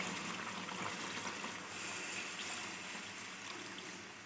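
Water poured in a steady stream into a steel pot of browned mutton and masala, splashing into the gravy, fading slightly toward the end. This is the water added to the fried masala so the mutton can stew until tender.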